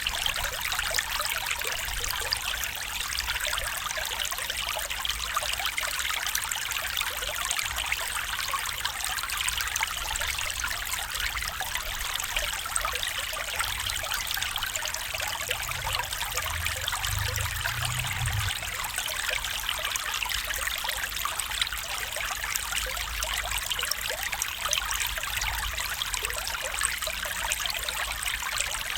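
Small stream trickling and babbling over stones, a steady, even rush of water, with a brief low rumble around the middle.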